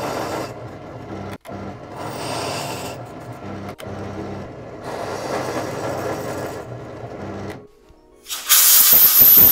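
Drill press running while a twist drill bit cuts into the metal top cover of a stabilizer link ball joint, the cutting grinding in three spells over the motor's steady hum; the motor stops about three quarters of the way in, and near the end a loud hiss follows.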